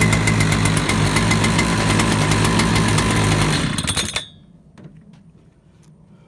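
Husqvarna 3120 chainsaw's single-cylinder two-stroke engine running steadily, then dying down and stopping about four seconds in, followed by a few faint clicks.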